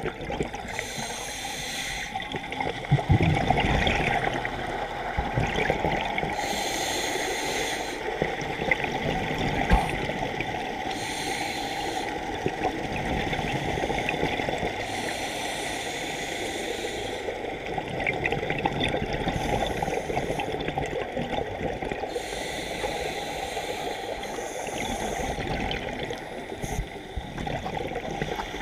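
Scuba diver breathing through a regulator underwater: a hiss on each inhale alternating with the bubbling rush of exhaled air, repeating every few seconds.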